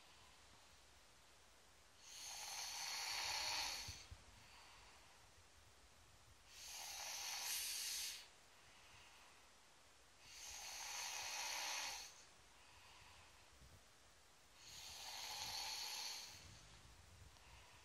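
An eight-year-old girl snoring loudly in her sleep: four long snores, one about every four seconds, with quiet breathing between them.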